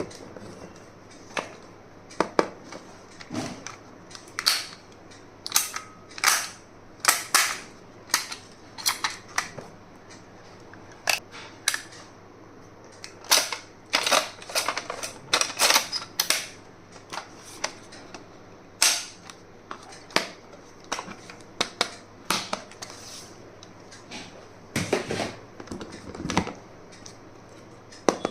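Irregular sharp clicks and snaps from small stationery items and their packaging being handled, some single and some in quick clusters.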